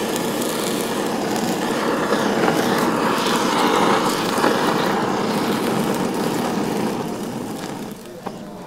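Handheld kitchen blowtorch running with a steady jet of flame as it sears thin slices of meat on a hot cast-iron sizzle plate. It dies away near the end.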